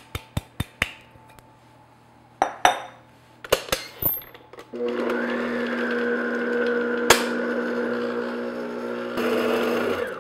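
A few sharp taps and clinks as flour is added to a glass mixing bowl. Then, about halfway through, a stand mixer starts and runs with a steady motor hum, its flat paddle beater mixing flour into chocolate cake batter.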